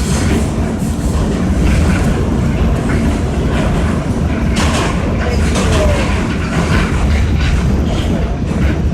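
Inside an R46 New York City subway car running along the track: a steady loud rumble with scattered clicks and clatter from the wheels and rails.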